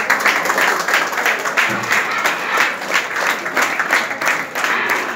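A roomful of people applauding, with dense, steady clapping.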